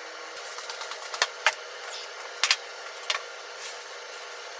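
A few light clicks and knocks of ceramic plates being handled and set on the kitchen countertop, a close pair about halfway through, over a steady hiss.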